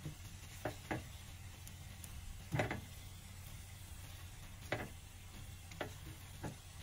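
A spatula stirring penne in creamy sauce in a coated frying pan, with about seven separate knocks and scrapes against the pan. The loudest comes about two and a half seconds in.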